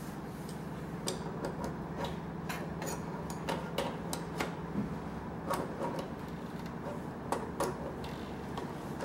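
Irregular light metallic clicks and taps of spanners working on a brass pipe union on a tractor, over a steady low hum.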